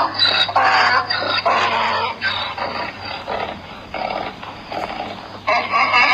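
Pig grunting and oinking in a run of short, rough calls that grow quieter past the middle. Near the end a pitched musical or sung tone starts.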